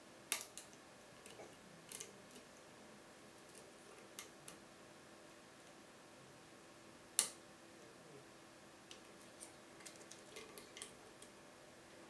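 Lock picks working inside a Bricard Supersureté cylinder with eight sliding wafers, making scattered small metallic clicks and taps. Two sharper clicks come near the start and about seven seconds in, and a run of light clicks comes near the end.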